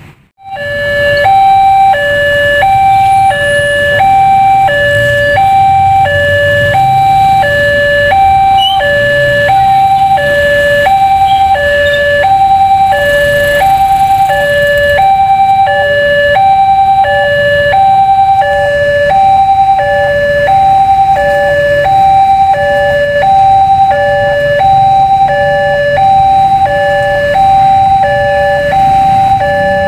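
Railway level-crossing warning alarm: an electronic two-tone bell alternating high and low, about one pair a second, sounding steadily as the crossing signals a train approaching. A low hum of traffic runs beneath.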